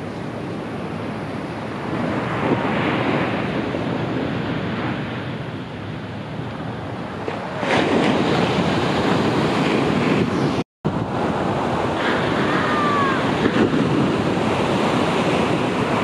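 Ocean shorebreak waves breaking and washing up the sand, with wind on the microphone. The surf grows louder about halfway through and cuts out for a moment near two-thirds of the way.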